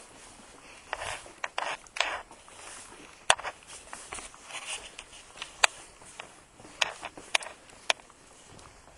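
Footsteps scuffing and scraping across a floor, irregular, with scattered sharp clicks.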